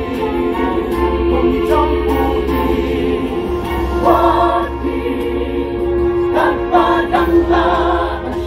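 Mixed choir of women's and men's voices singing in parts, holding one long chord underneath while the upper voices rise in brief phrases, once about halfway through and again near the end.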